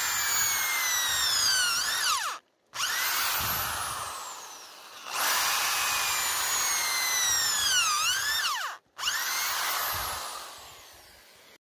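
Corded electric drill boring into a weathered wooden plank, its motor whining steadily. The pitch sags and springs back twice as the bit loads up in the wood, and the whine stops abruptly three times.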